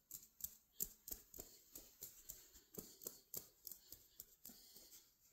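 Faint, irregular clicks and taps, about two to three a second, from hands handling and moving stuffed toys close to the microphone.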